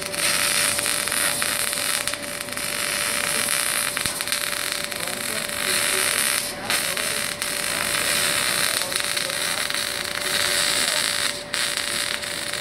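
MAG (gas metal arc) welding arc laying a bead on a steel pipe: a steady crackling hiss, with short breaks about six and a half and eleven and a half seconds in.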